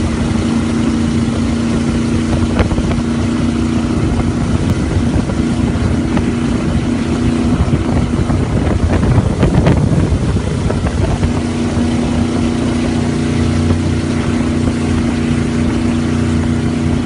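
Cruiser boat's engine running at speed with a steady drone over the rush of its churning wake. For a few seconds in the middle, a louder rushing noise drowns the engine's tone, which then returns.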